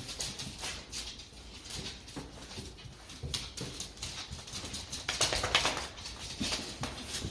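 A dog moving about, with scattered taps and scuffles and a louder burst of noise about five seconds in.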